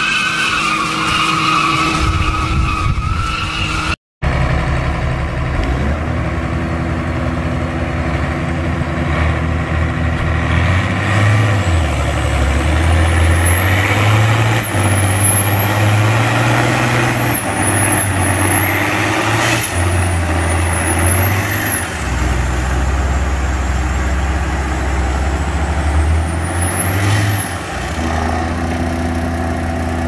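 Tyres squealing for the first four seconds as a tractor drags a car. Then, after a cut, a New Holland and an old Fiat tractor pull against each other, their diesel engines labouring at full load, engine note rising and falling, with a high rising-and-falling whistle through the middle and near the end.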